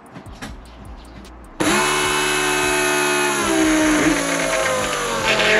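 Electric fuel pump switched on to prime, starting suddenly about a second and a half in with a loud whine whose pitch sags and wavers, turning rougher near the end. With only about a gallon in the tank it only sounds like it tried to pick up fuel, which may mean it has sucked the tank dry and needs more fuel.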